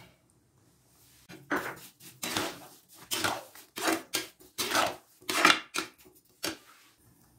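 Metal ladle stirring wet sago and banana in an aluminium kadai, scraping against the pan in about eight short strokes, starting about a second in.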